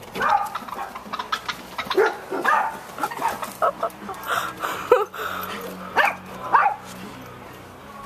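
A dog barking again and again in short, sharp barks, which stop about seven seconds in.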